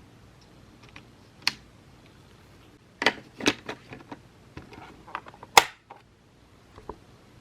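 Scattered sharp clicks and clacks of small hard objects being picked up and set down: small watch-repair tools and watch parts being put back after a battery change. The clicks come in an irregular cluster midway, with the loudest single clack a little later.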